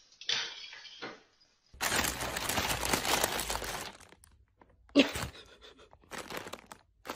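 Plastic bag crinkling and rustling among piled clothes as a cat moves in it. It comes in rough bursts, a long one starting about two seconds in and a sharp crackle about five seconds in.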